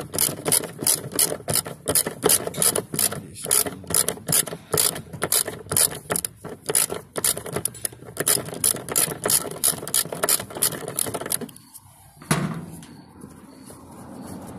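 Socket ratchet wrench clicking as a 10 mm bolt is unscrewed, a fast run of sharp clicks, several a second. The clicking stops near the end and is followed by a single knock.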